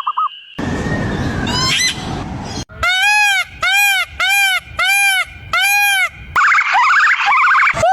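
Animal calls. First a rough, noisy stretch with a rising cry. Then six evenly spaced honking calls, each rising then falling in pitch. Near the end comes a quick run of short sliding calls.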